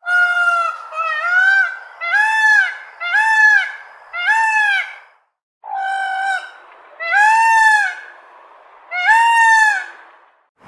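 A large fowl giving a series of about eight loud, honking calls, each rising and falling in pitch. There is a short silent pause midway.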